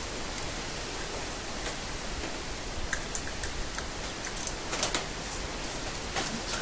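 A few light, irregular clicks from a hand tool on the engine side-cover bolts as they are refitted, over a steady hiss.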